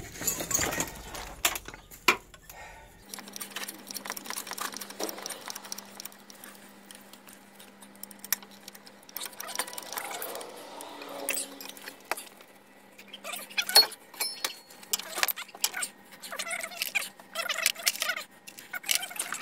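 Scattered metal clicks and clinks from a homemade bottle-jack ball joint press and its steel fixtures being worked and shifted under a vehicle's suspension, with one louder click about 14 seconds in.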